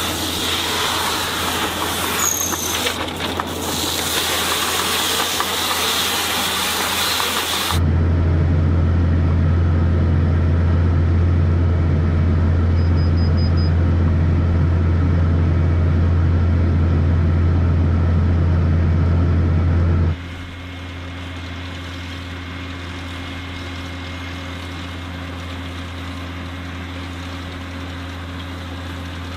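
Tractor and round baler-wrapper running. First the Kuhn FBP 3135 baler-wrapper wraps a bale in film, heard as a hiss with two brief squeals. About eight seconds in, a sudden change brings the New Holland T6050 tractor's engine droning steadily under load from inside the cab, and near the end it drops sharply to a quieter steady hum.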